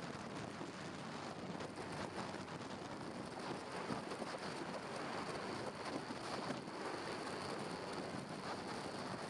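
Motorcycle riding at speed: a steady rush of wind over the microphone mixed with road and engine noise.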